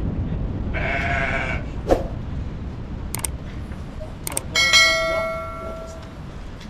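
A goat bleats once, about a second in. Later a bright bell chime rings and fades over about a second and a half, with a low steady rumbling noise underneath throughout.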